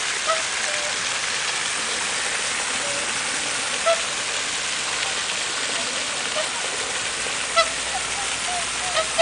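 Swans and geese on a pond giving short honking calls, a few seconds apart and twice in quick succession near the end, over the steady rush of a fountain's spray falling on the water.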